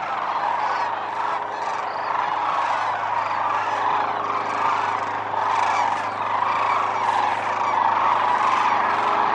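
Thousands of sandhill cranes calling at once: a dense, continuous chorus of overlapping calls.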